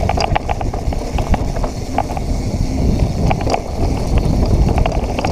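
Santa Cruz Hightower V2 mountain bike being ridden over a dirt and rock trail: a constant rumble of tyres and wind on the microphone, with frequent clicks and rattles from the bike.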